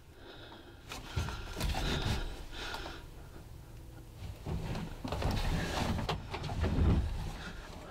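Hushed breathing and rustling movement of hunters inside a hunting blind, in two irregular spells with low thumps of handling noise.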